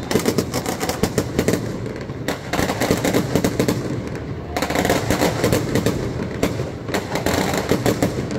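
A string of firecrackers going off in a dense, rapid crackle of sharp pops.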